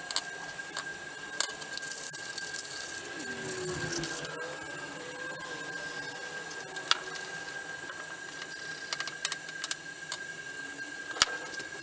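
Scattered clicks, knocks and a stretch of scraping as a screwdriver is cleaned up, over a steady high-pitched hum.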